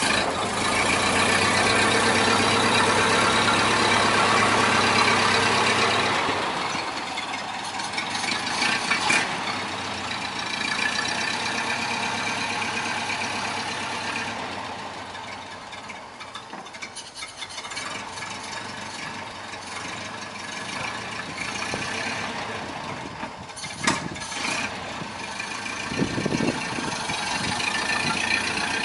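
Ford Model A's four-cylinder flathead engine idling as it warms up after a cold start, loudest for the first several seconds and then quieter, with a few sharp knocks later on.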